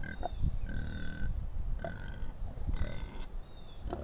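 Kune Kune pigs grunting, a low uneven rumbling, with several short high-pitched chirps over it.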